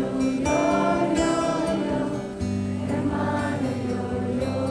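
Live band music between sung lines: voices holding and bending notes over guitar and a steady low bass line, with a new bass note coming in about two and a half seconds in.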